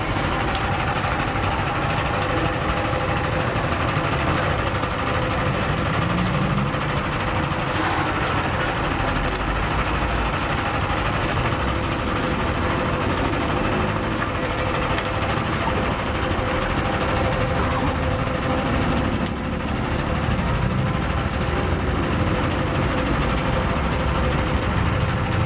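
Motor-driven sugar cane roller press running with a steady engine-like drone while cane stalks are fed through its steel rollers to be crushed for juice.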